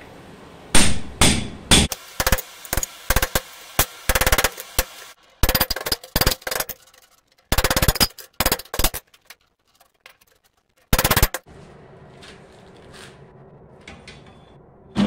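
Hand-hammer blows on a steel punch driven into a red-hot steel bar on an anvil, punching holes: quick runs of sharp, ringing strikes that cut off abruptly several times. The strikes stop about eleven seconds in, leaving a faint hum and a few light knocks.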